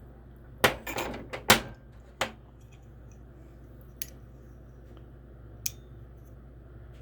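Folding pocket knives being handled, clicking and clacking: a quick run of sharp clacks in the first two seconds, then two single sharp clicks later on.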